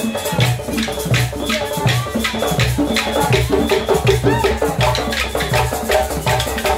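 A live West African drum ensemble on djembe hand drums plays a driving dance rhythm. Deep strokes land about twice a second under dense, sharp high slaps.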